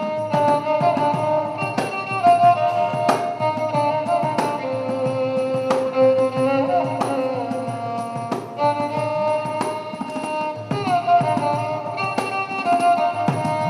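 Violin playing a film-song melody in held, sliding notes, accompanied by regular hand-drum strokes.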